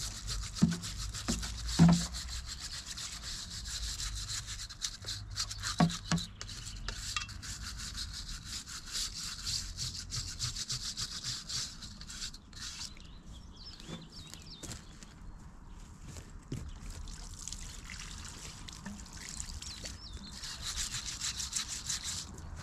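Brush scrubbing a surface: a rapid back-and-forth rasping, with a few knocks in the first six seconds, the loudest about two seconds in.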